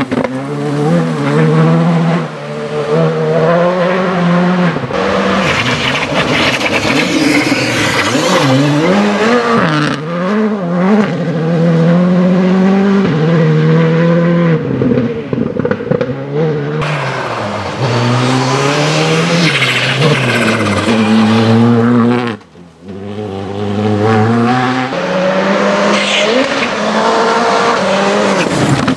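Škoda Fabia Rally2 Evo's turbocharged 1.6-litre four-cylinder engine at full attack on a gravel stage, revs climbing and dropping again and again through the gear changes, over the hiss of tyres on loose gravel. The sound cuts out for a moment about three-quarters of the way through.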